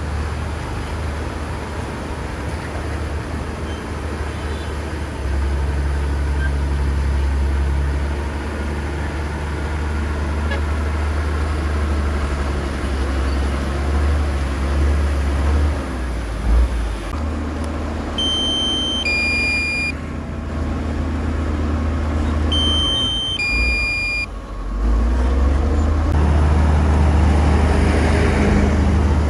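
Heavy diesel engine of a bulldozer running under varying load, a steady deep drone that dips and swells. Twice, about two-thirds of the way in, a short two-note electronic beep sounds, falling from the higher note to the lower.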